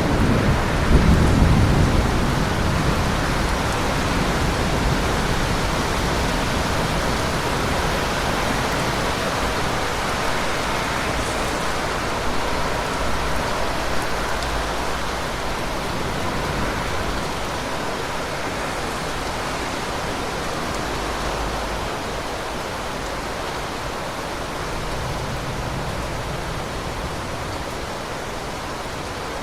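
Steady heavy rain with thunder rumbling, loudest in the first two or three seconds and then dying away into a low roll under the rain. The rain hiss slowly grows quieter.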